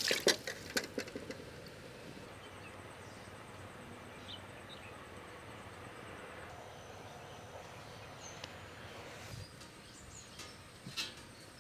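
Quiet outdoor ambience: a faint steady hiss with a few faint bird chirps and a thin high whine for a few seconds in the middle. A few light clicks and knocks in the first second or so.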